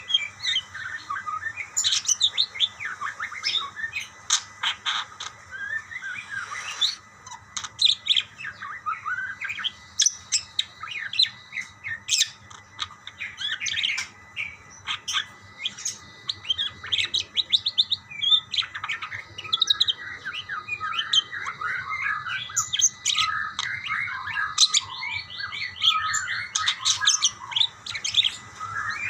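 Several budgerigars chirping and warbling over one another nonstop, calling back and forth, with a fast run of ticking chatter near the end. A faint steady hum lies underneath.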